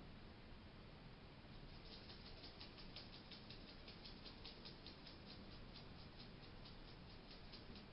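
Pet hedgehog making a faint, rapid run of small clicks, about six a second, starting about two seconds in. The owner first took it for sneezing or illness and later learned it is a sign of contentment.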